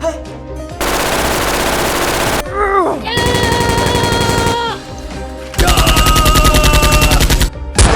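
Sound-effect automatic gunfire in three long rapid bursts, each about one and a half to two seconds, with short gaps between them.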